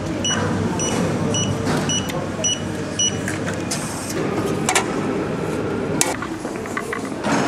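Metro ticket vending machine beeping: short high electronic beeps repeat about two to three times a second for the first three seconds. Under them runs a steady station background noise, and a few sharp clicks come later.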